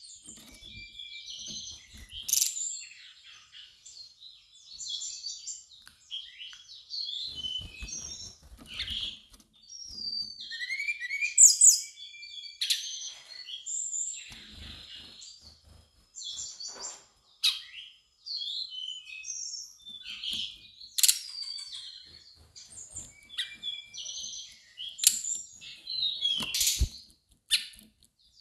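Brown-chested jungle flycatcher singing a string of short, varied chirping and warbling phrases with brief pauses between them. A few soft low thumps come in between the phrases.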